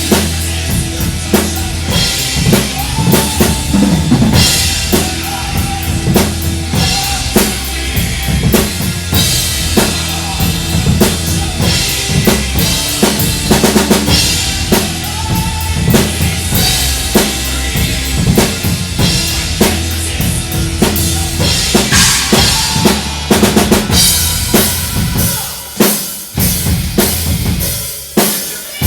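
Heavy rock music driven by a full drum kit, with bass drum and snare hits keeping a steady beat under held instrumental notes; the music drops back briefly near the end before coming in full again.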